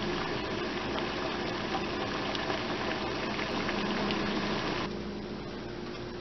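Water at a full boil in a covered stainless steel pot on an electric stove: a steady bubbling with steam escaping under the lid. It stops suddenly about five seconds in.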